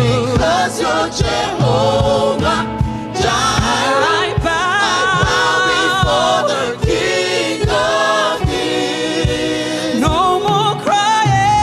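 Live gospel worship song: a woman's lead vocal on microphone with a choir singing along, over a steady beat.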